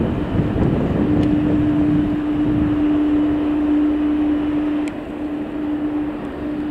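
Jet airliner engines running as a loud, steady drone with a held hum, mixed with wind buffeting the microphone.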